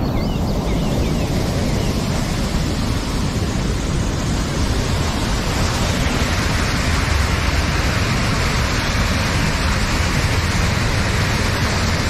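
A large waterfall in full monsoon flow, heavy water rushing steadily over the rocks.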